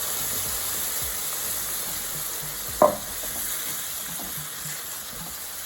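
Curry powder and seasoning frying in a hot pot: a steady sizzle, with one sharp clank of a utensil against the pot a little under three seconds in.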